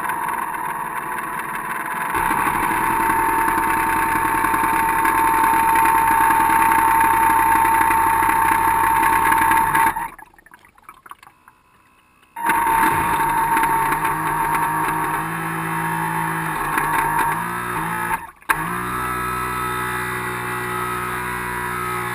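Twin 380-size brushed electric motors of an RC harbour boat running with a steady high whine, along with water noise from the hull. The motors cut out for about two seconds just before halfway, then come back with a shifting pitch, and drop out again briefly near the end.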